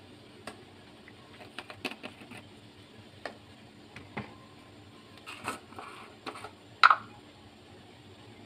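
Scattered light clicks and taps of kitchen utensils being handled: a small plastic measuring spoon against a steel mesh sieve and plastic jars being picked up and set down. A louder clack comes near the end.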